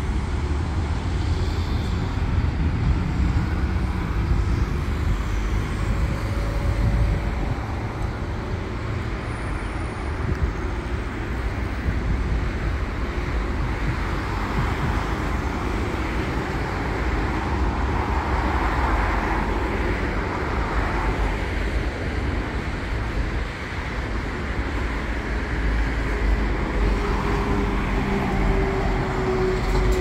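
City road traffic: cars passing on a busy street with a continuous low rumble, and a faint steady whine from a passing vehicle near the end.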